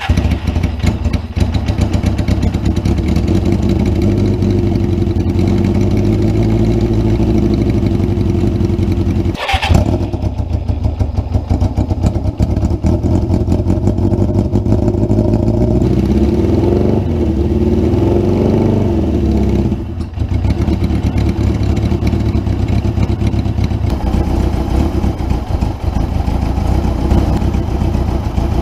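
Suzuki GS550 air-cooled inline-four motorcycle engine catching at the start and then running steadily, with the revs wavering up and down for a few seconds midway as the carburettors are adjusted. There is one sharp knock about ten seconds in. The exhaust has a hole in it.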